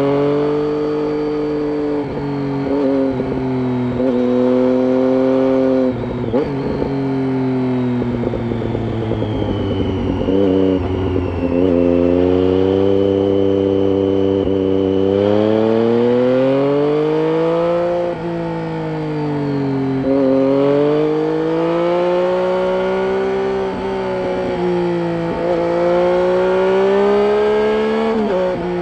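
Triumph Street Triple 675's inline three-cylinder engine through an aftermarket Roads Italia exhaust with its dB killer fitted, ridden on the road. The pitch rises under throttle and drops as it eases off or shifts, several times over. There are rough, crackly stretches around six seconds in and again around ten seconds in.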